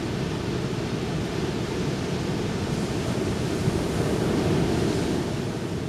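Ocean surf washing onto a beach: a steady rush of breaking waves that swells slightly about four seconds in.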